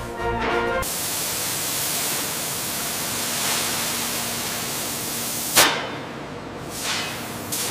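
Steady hiss of a CNC plasma cutter cutting steel plate, with a sharp crack about five and a half seconds in, after which the hiss goes on quieter.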